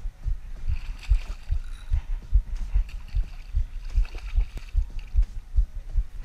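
Water slapping against a small boat's hull in low, even thumps about two to three a second, with light splashing from a hooked bluefish thrashing at the surface beside the boat.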